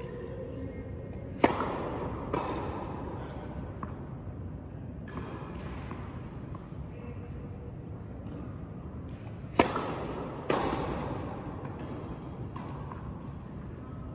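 Tennis ball struck by a racket during a rally: two sharp, loud hits a little over a second in and again near the end, each answered about a second later by a second knock, with fainter knocks between. Each strike rings on in the echo of a large indoor tennis hall.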